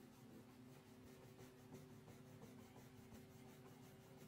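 Faint scratching of a crayon rubbed back and forth on paper in rapid, even strokes, colouring in. A steady low electrical hum sits underneath.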